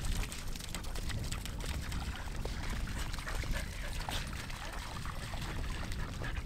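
Wind on the microphone across open tidal flats: a steady hiss with a deep rumble, over the faint wash of shallow water.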